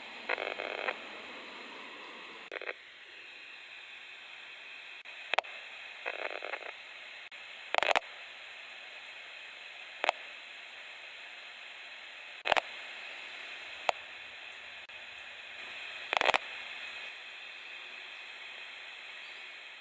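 Steady hiss with a handful of sharp, irregularly spaced clicks and a few brief rustling bursts.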